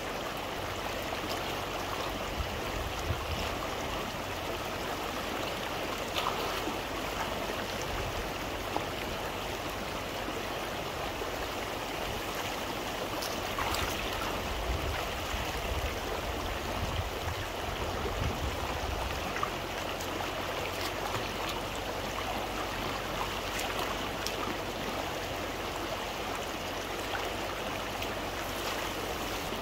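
River water flowing, a steady rushing, with a few faint clicks over it.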